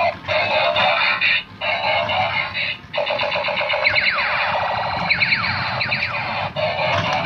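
Transforming Thomas robot toy train playing electronic music through its small built-in speaker, thin and tinny, with falling electronic sweeps about four and five seconds in as it changes form.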